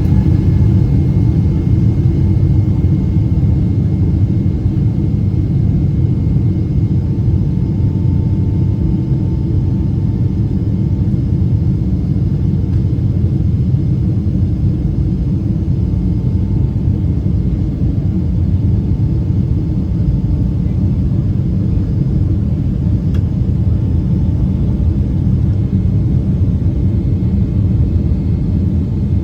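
Airliner cabin noise during take-off: the engines and airflow make a loud, steady low rumble, with a few faint steady whines above it.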